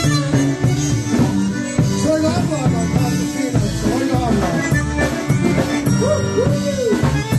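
A live polka band playing, with full held chords over a steady bass line and some sliding melody notes near the end.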